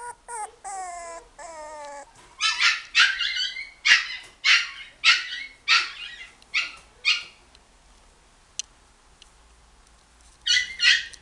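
Long-haired miniature dachshund puppy whining in three short wavering cries, then giving a run of short sharp high-pitched yips about twice a second, with a couple more near the end.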